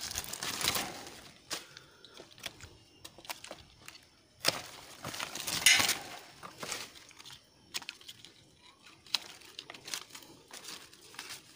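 Grapevine leaves and canes rustling and brushing close against the microphone as the camera moves through the trellised vine, in irregular bursts with the loudest about five to six seconds in. A few short sharp clicks from the pruning shears come between the rustles.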